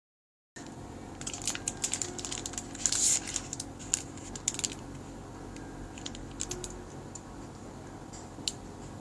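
Small stainless steel dental instruments being handled, with a quick run of light clicks and taps in the first few seconds and a few scattered clicks later.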